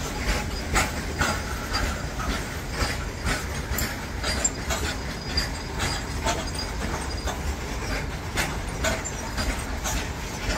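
Open-top steel freight wagons of an Indian Railways goods train rolling past close by: a steady low rumble with the wheels clacking over rail joints again and again.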